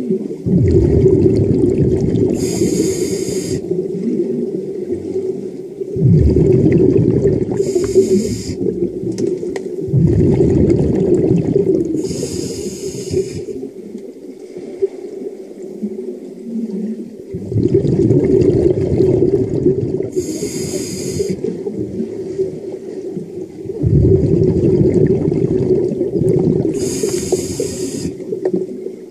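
Muffled sound from a camera held underwater: a snorkeler's slow breathing, with a hissing breath about every five seconds, alternating with longer rumbling stretches of water movement.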